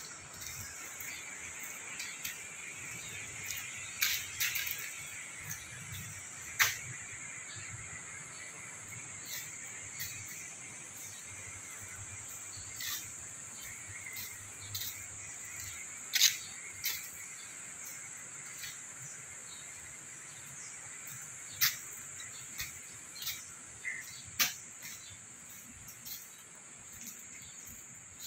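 Steady high-pitched insect chorus. Scattered sharp clicks and taps over it, the loudest about a quarter, a half and three quarters of the way through.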